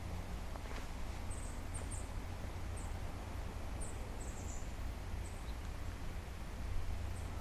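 Small songbirds giving high, thin chip calls, about a dozen short chirps scattered irregularly, over a steady low rumble and background hiss.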